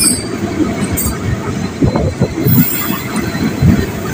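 Passenger train coaches running on the rails at close range: a loud, dense rumble of wheels with irregular knocks, and short high squeals at the start and about a second in.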